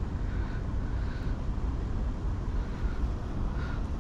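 Steady low rumble of wind on the microphone, with a few faint short higher-pitched calls.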